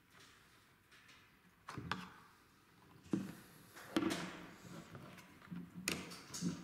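Butt assembly of a Heckler & Koch G41 rifle being slid off the receiver and set down: a few separate short knocks and scrapes of polymer and steel.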